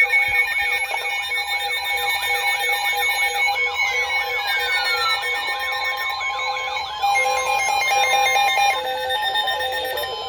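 Several weather radios and emergency alert receivers sounding their warning alarms together: a fast, repeating rising-and-falling siren-like sweep over steady alert tones, with a falling glide in the middle and a pulsing beep pattern joining about seven seconds in. The alarms are set off by a severe thunderstorm warning.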